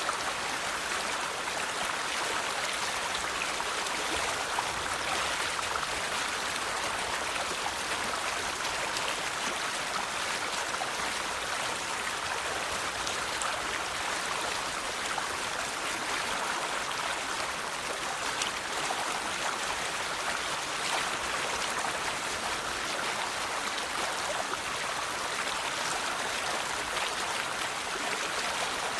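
River water flowing over rocks, a steady even rush with small splashes and trickles throughout.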